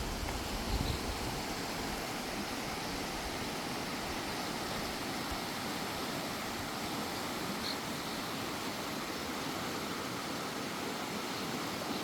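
Steady rushing noise of the Klamath River flowing below, with a little wind buffeting on the microphone in the first second.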